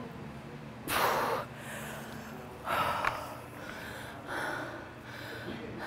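A person breathing hard from exertion mid-workout: three loud, sharp exhales, each about half a second long, roughly a second and a half apart.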